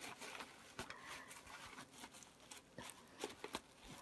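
Faint, irregular rustling and crinkling of a plastic bag as a cat roots around inside it with its head, with scattered small crackles.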